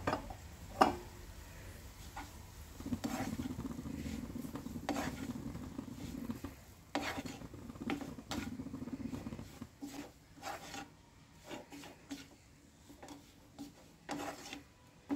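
A spatula stirring and scraping grated sausage around a nonstick frying pan, in irregular strokes with occasional sharp taps against the pan.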